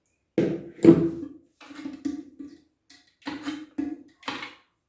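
A series of about five hard knocks and clunks, each with a brief low ringing note, from parts being handled and set down in and around a toilet cistern.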